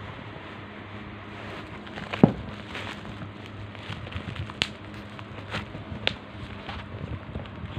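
Packaging being handled during an unboxing: scattered crinkles and sharp clicks, the loudest a little over two seconds in, over a steady low hum.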